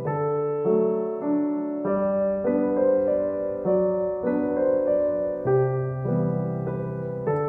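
Background piano music at an even, unhurried pace, with a new note or chord about every half second over held chords.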